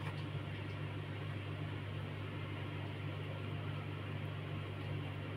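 Steady low hum with an even hiss of room noise and no distinct sounds.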